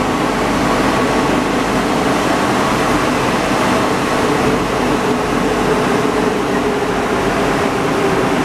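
Steady running noise of a rubber-tyred NS93 metro train, heard from inside the passenger car, with a constant low hum under it.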